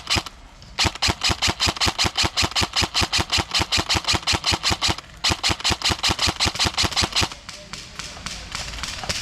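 Airsoft rifle firing on full auto in two long bursts, about eight shots a second. The first burst lasts about four seconds and the second about two, followed by quieter scattered noise.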